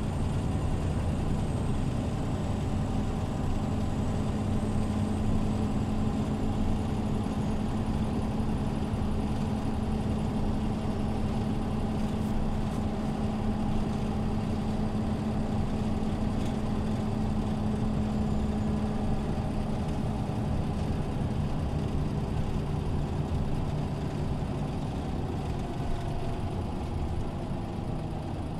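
Scania OmniLink CL94UA articulated city bus running, a steady engine drone with a strong humming tone that fades out about two-thirds of the way through.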